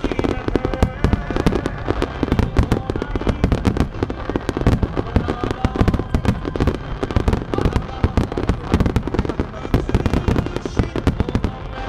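Starmine fireworks barrage: many aerial shells fired and bursting in rapid succession, a dense, unbroken run of bangs and crackles several times a second.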